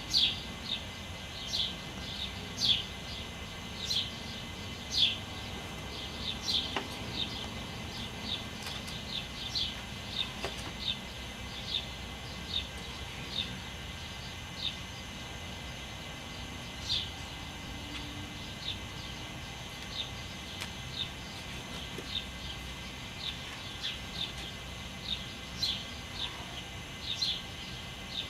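Songbirds chirping in the early-morning chorus: short, downward-sliding chirps repeated irregularly, up to about two a second and thickest in the first few seconds, over a steady low background hum.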